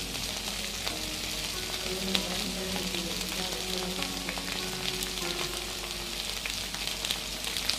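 Sliced ivy gourd and green chillies sizzling as they fry in oil in a pan: a steady hiss with scattered small pops.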